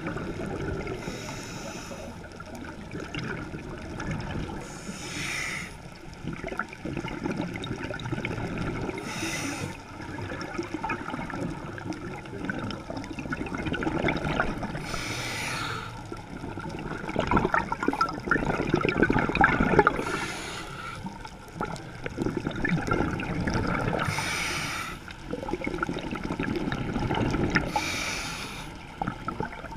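A scuba diver breathing through a regulator, heard underwater: a short hiss on each inhale, about every four to five seconds, and a rumble of bubbles on each exhale.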